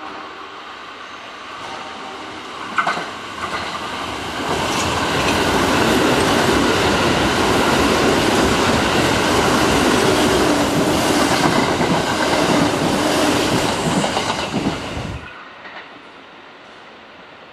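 Kintetsu electric commuter train running past at speed, its wheels clattering over the rail joints. The noise builds over the first few seconds, with a sharp clack about three seconds in, and cuts off suddenly near the end.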